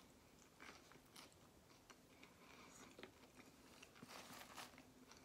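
Faint crunching and chewing of a mouthful of raw okra, with a louder crunch about four seconds in.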